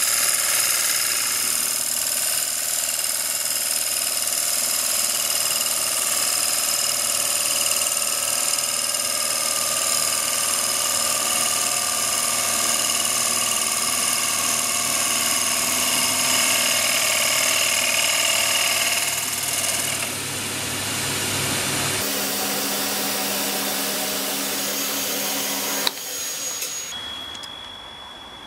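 CNC lathe turning a wooden disk on a finish cut: a loud, steady machine whine of several tones over a hiss. About twenty seconds in the sound shifts, and after a sharp click near the end it drops to a quieter single high tone.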